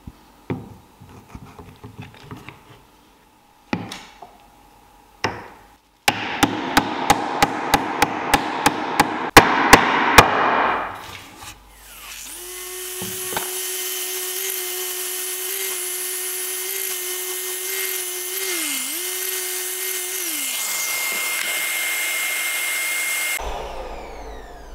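A bow-tie (butterfly) key is knocked into its glued mortise: a run of quick, even hammer blows, about four a second. Then a small power tool's motor runs steadily for about ten seconds, with a falling spin-down partway through, and cuts off suddenly near the end.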